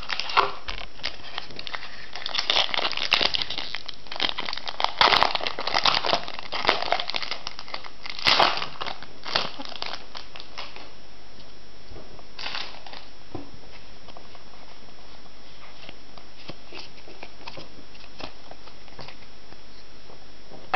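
Pokémon TCG booster pack wrapper crinkling and being torn open, in a run of crackly bursts over the first half, then only a few faint rustles.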